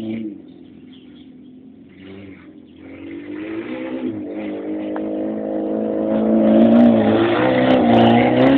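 Peugeot 205 hatchback's engine running under throttle as the car drives around, faint at first, then growing steadily louder over several seconds as it comes close.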